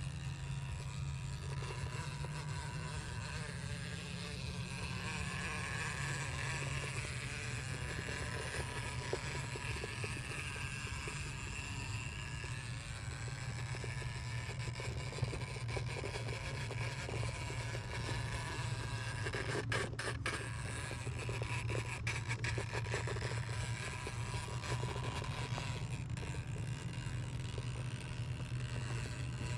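Axial RBX10 Ryft 1/10-scale RC rock bouncer's brushless motor and geared drivetrain whining as it crawls over rock, the pitch wavering up and down with the throttle. A quick cluster of clicks comes about twenty seconds in.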